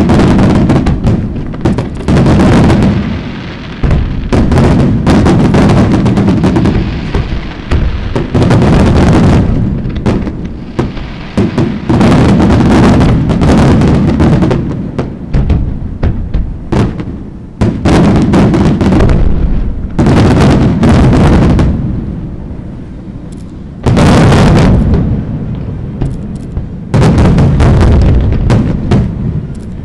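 Aerial fireworks shells and rockets bursting in rapid volleys of booms and crackling bangs, coming in dense clusters with short lulls between them.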